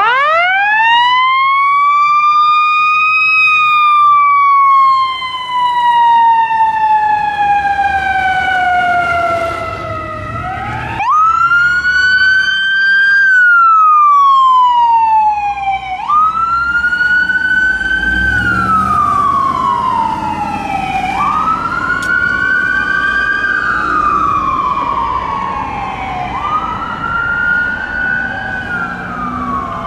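Fire engine and ambulance sirens wailing in long rising and falling sweeps: first one slow wail, then shorter ones. From about halfway, two sirens sound together slightly out of step.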